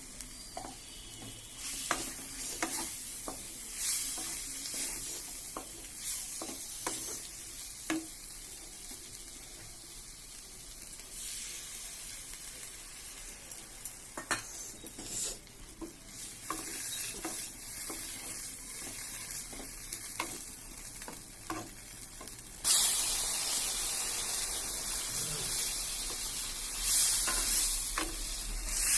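Fish curry frying in hot oil in a pan, sizzling steadily while a spatula stirs and scrapes, with many sharp clicks against the pan. The sizzle becomes suddenly louder about three-quarters of the way through.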